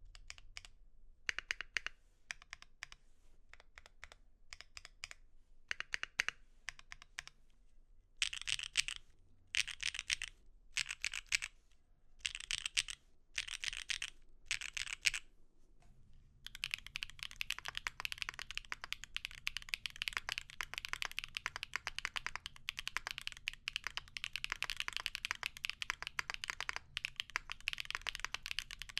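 Mechanical keyboard with Gateron x Siliworks Type R switches being typed on. For the first half it is short bursts of keystrokes on a polypropylene (PP) plate. After a brief pause about halfway through, fast continuous typing follows on an aluminium plate.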